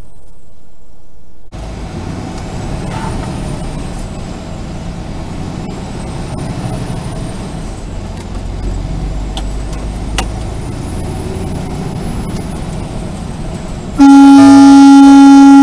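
Cab noise of a semi-truck accelerating: a steady low engine and road rumble. About 14 seconds in, a loud, steady horn blast starts and holds.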